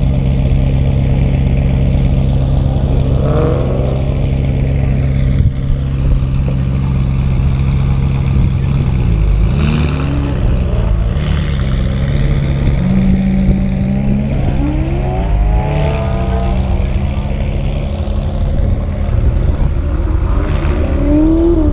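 Sports car engines idling in a slow-moving queue, with a steady deep engine note and four short throttle blips that rise in pitch, spaced about five to six seconds apart.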